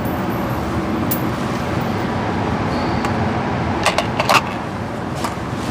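Steady hum of an indoor range's air handling, with a few light metallic clicks and clinks of rifle and cartridge handling: one about a second in and a quick cluster around four seconds in.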